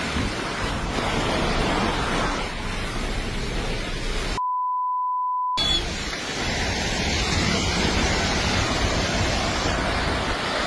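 Steady rushing noise like a wild river. About four seconds in, a censor bleep: a single steady beep lasting about a second, with the rushing cut out beneath it.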